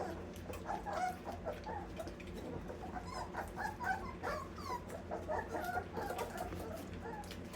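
A litter of Old English Sheepdog puppies whimpering and squeaking, many short high squeals overlapping one another, over a steady low hum.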